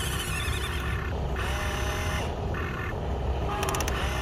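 Electric motors and gearboxes of a Huina radio-controlled excavator whining as the boom and arm move; each whine rises briefly in pitch as a motor starts, then holds steady, over steady low noise. A run of rapid clicking comes near the end.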